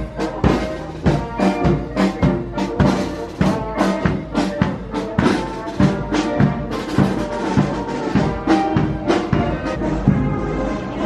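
Military brass band playing a march, brass over a drum beat about twice a second.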